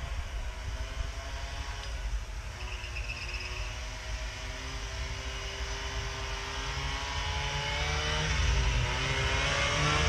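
Two-stroke Ski-Doo snowmobile engine approaching, getting steadily louder, its pitch slowly rising with a brief dip near the end.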